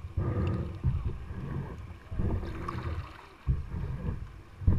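Kayak being paddled on calm water: paddle strokes dip and pull through the water in repeated surges about a second or so apart, with water washing along the hull.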